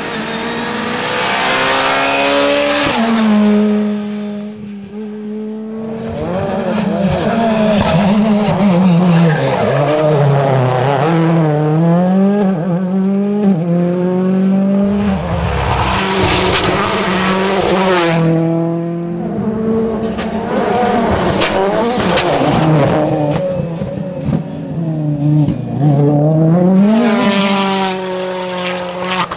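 Rally cars driven flat out on a tarmac stage, one after another. Each engine revs up and drops back through quick gear changes, over and over.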